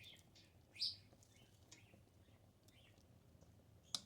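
Near silence with a faint, short bird chirp about a second in and a few fainter chirps.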